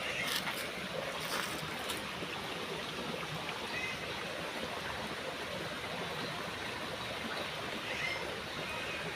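Steady rushing of flowing water, with a few faint clicks in the first couple of seconds.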